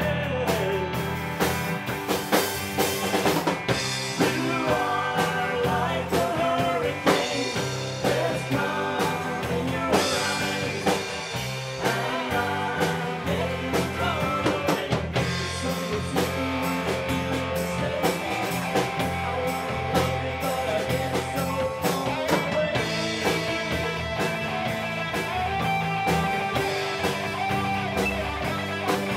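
Live rock band playing: two electric guitars, electric bass, fiddle and drum kit, with a steady drum beat.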